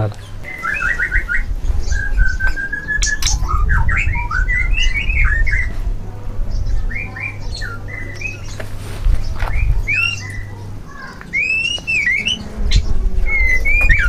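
White-rumped shama (murai batu) singing: a string of varied short chirps and whistled notes that rise and fall, in quick phrases with short gaps.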